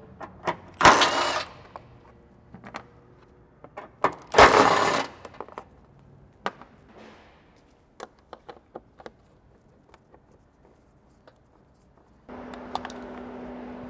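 Cordless impact gun on a long extension undoing the airbox's 12 mm bolts in two short bursts, about a second in and about four seconds in. Light clicks and taps follow, and near the end a steady hum begins.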